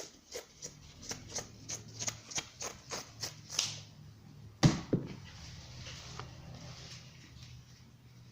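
A run of light clicks, about three a second, for nearly four seconds, then a single loud knock, over a faint low hum.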